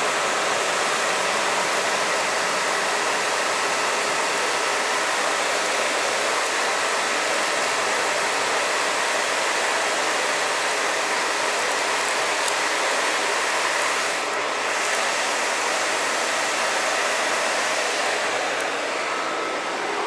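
A steady, loud rushing noise with a couple of faint steady tones in it, easing a little near the end.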